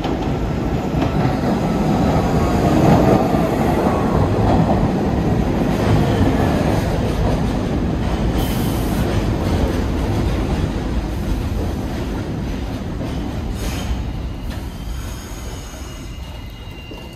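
New York City subway train running on the tracks past the station: a loud rumble of wheels on rail that builds to a peak about three seconds in and then slowly fades away. A faint high whine comes in near the end.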